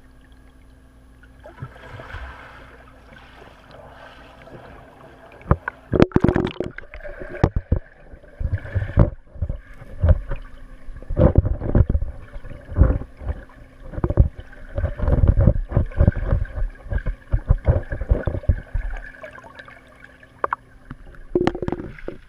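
Muffled water noise picked up by a GoPro underwater in a swimming pool: irregular heavy thumps and surges as swimmers kick and splash around it, with knocks as the camera tips over. It gets busy and loud from about six seconds in.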